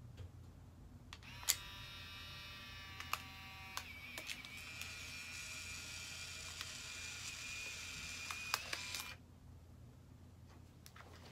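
Instant camera's shutter clicking about a second and a half in, followed by the steady whir of its motor ejecting the print. The whir is punctuated by a few small clicks and stops about nine seconds in.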